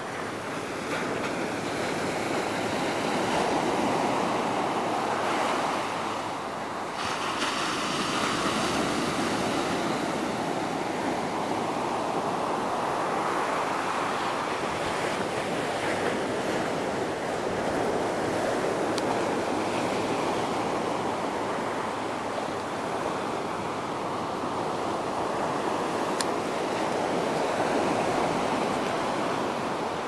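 Ocean surf breaking and washing up a sandy beach: a continuous rushing noise that swells and eases every few seconds as each wave comes in.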